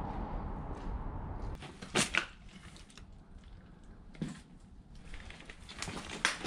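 Footsteps on a rubble-strewn floor, with a few sharp cracks and knocks of debris underfoot, the loudest about two seconds in and another near the end. A low rumble fills the first second and a half.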